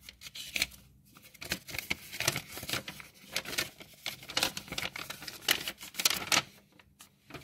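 Irregular light rustling and clicking that comes and goes in short scrapes, with a quieter stretch near the end.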